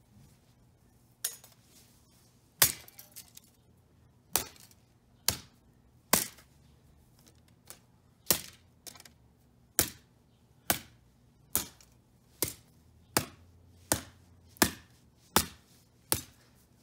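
A golf club repeatedly smashing the broken parts of an Acer CD drive: about seventeen sharp strikes, roughly one a second, beginning about a second in.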